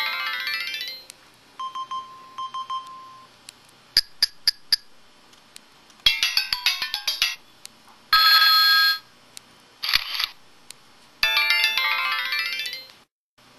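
LG-SD1200 mobile phone's built-in sound effects playing one after another through its speaker: short synthesized chimes, beeps and jingles separated by brief pauses. A fast arpeggio chime opens and returns near the end, with four quick pips about four seconds in and a buzzy held tone about eight seconds in.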